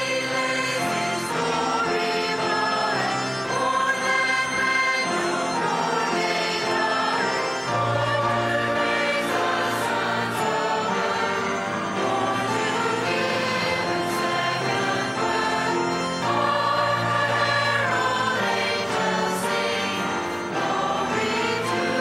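Mixed church choir singing together with piano accompaniment.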